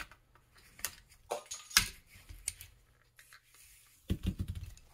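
Plastic housing parts and fittings of a Ryobi P737 cordless inflator clicking and knocking as they are handled during disassembly. Scattered sharp clicks, the loudest about two seconds in, and a short rattling clatter near the end.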